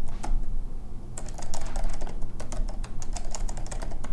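Keystrokes on a computer keyboard as a password is typed in: a few keys, a short pause, then a quick run of keystrokes from about a second in.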